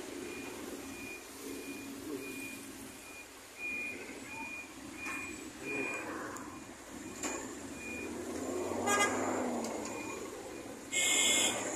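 Road traffic at a roundabout: vehicle engines running at low speed, with an electronic beeper sounding about twice a second for the first several seconds. A vehicle horn sounds briefly near the end, the loudest sound.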